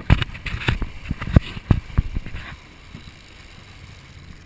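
A quick, irregular run of sharp knocks and clatters over the first two and a half seconds, the loudest about halfway through, then only the steady rush of wind and water from the boat underway.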